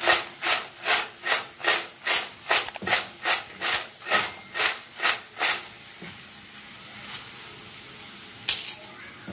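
Crisp fried potato chips rattling and rustling against a stainless steel bowl as it is shaken to mix in chili powder and salt, about two to three shakes a second, stopping about five and a half seconds in. A brief rustle of the chips comes near the end as a hand lifts one out.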